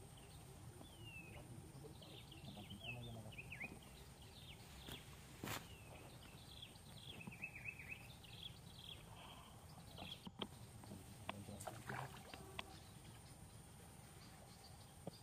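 Faint outdoor ambience with a run of short, high, falling chirping calls through most of the first two-thirds, and a few light clicks.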